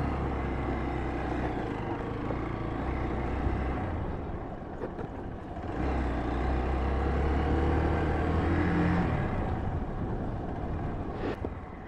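Motorcycle engine running as the bike rolls slowly along a dirt trail, with a haze of road and wind noise. The engine note drops away about four seconds in and picks up again, louder, about two seconds later.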